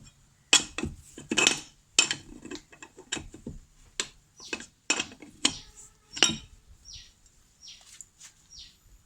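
Metal tools and parts clinking and knocking in about a dozen separate sharp hits, typical of a wrench and wheel nuts being handled while a car wheel is taken off. Near the end come three short falling squeaks.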